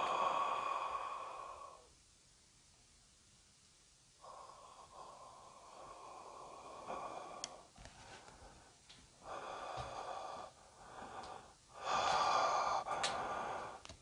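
A person's breathing close to the microphone: several long breaths with quiet gaps between, and a few faint clicks.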